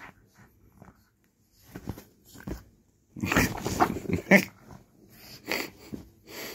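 A pug's breathing and throat noises during play, in short irregular bursts as she mouths a toy, loudest from about three to four and a half seconds in and again near the end.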